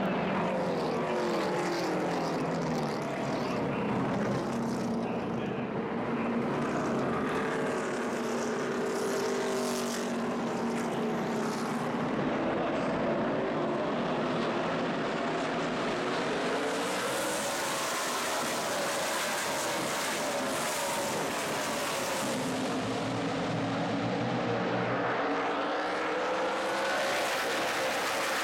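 NASCAR Sprint Cup stock cars' pushrod V8 engines running at racing speed as the field streams past. Several engine notes overlap, each gliding up and then falling in pitch as a car goes by.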